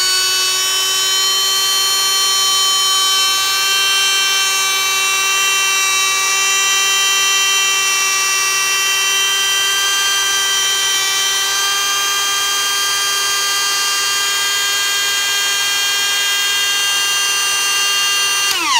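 Kobalt KDG 124B-03 die grinder running free at high speed with no load, a steady high-pitched whine; at the very end it is switched off and the whine drops quickly in pitch as it spins down. In this free run its output shaft heats up, which the owner suspects comes from missing lubricant in its transmission.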